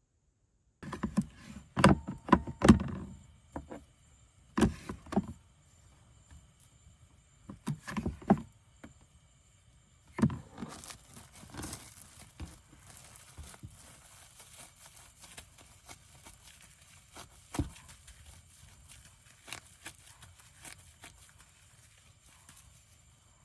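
Objects being handled: a run of sharp knocks and clatters in the first few seconds, more now and then, and quieter rustling between them over a faint steady background with a thin high tone.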